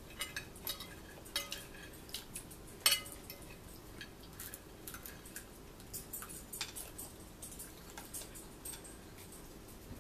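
Forks clinking and scraping against dinner plates in scattered, irregular light clinks, the sharpest about three seconds in.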